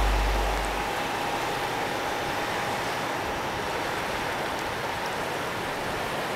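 Steady rush of river water, with the tail of background music fading out in the first second.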